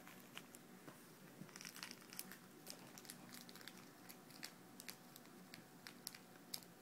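Faint scattered crinkling and clicking as a border terrier mouths and tugs at stuffed toys.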